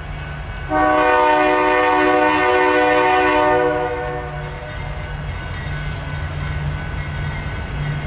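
Nathan K3LA five-chime air horn on the lead GE AC44CW locomotive sounding one long chord of about three seconds, starting just under a second in; it sounds muffled and eerie, which the uploader puts down to snow likely clogging the chimes. A steady low rumble continues beneath and after it.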